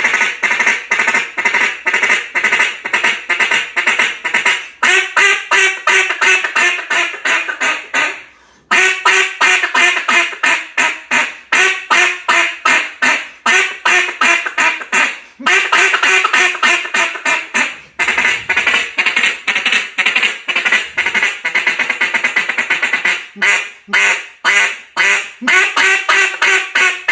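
Hand-blown cut-down duck call of cast acrylic with a keyhole insert and single Mylar reed, giving loud, rapid quacks in long runs broken by short pauses about 8 and 18 seconds in.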